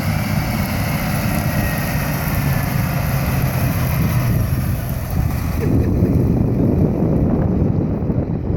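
Harvest machinery engine running steadily with a low hum. About two-thirds of the way through, the high hiss drops away and wind buffeting the microphone takes over.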